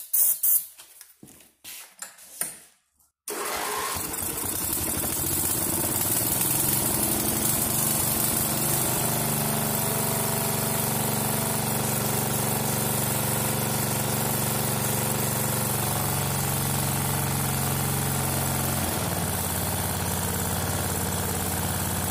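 A few short hissing bursts of aerosol starting fluid, then the Craftsman 12.5 hp I/C Gold single-cylinder engine of a Simplicity Regent lawn tractor starts about three seconds in and runs steadily. It is running on the shot of starting fluid after a no-start traced to a fuel problem.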